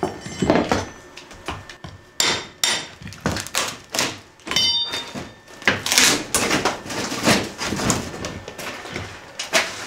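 Cut sections of a rotted wooden floor being pried and knocked loose with a metal pry bar: a run of irregular knocks and thuds, with a brief ringing metal clink about four and a half seconds in.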